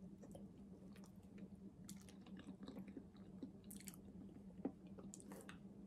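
Faint chewing of a soft peeled banana: small scattered mouth clicks and a few brief soft noises, over a steady low hum.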